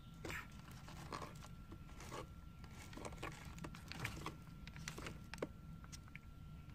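Sulcata tortoises biting and crunching a piece of raw carrot, with crackles and rustles as they shift about on newspaper: faint, irregular crunches, one or two a second. A steady faint high whine runs underneath.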